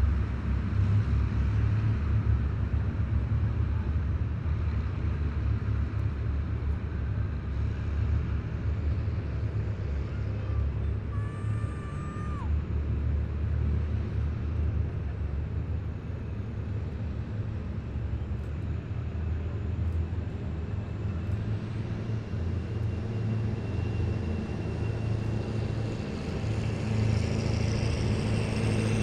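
Heavy military vehicles driving past in a column: a steady, low engine rumble. A short high squeal sounds about twelve seconds in, and a high whine builds over the last few seconds.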